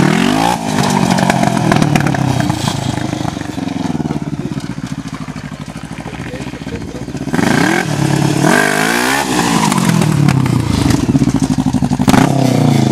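Racing lawnmower engine revving as mowers pass close by, the pitch dropping as each goes past: once right at the start, again around eight to nine seconds in, and near the end. In between it is further off and quieter.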